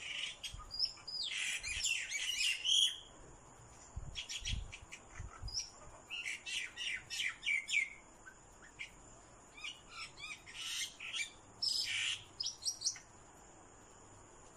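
Birds calling in quick chattering runs of short, high notes, coming in four bursts.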